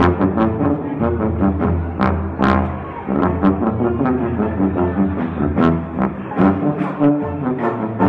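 Live early-jazz brass band playing a circus tune: a sousaphone holds a deep bass line under trombone, trumpet and clarinet. A steady beat of drum and cymbal hits runs under the horns.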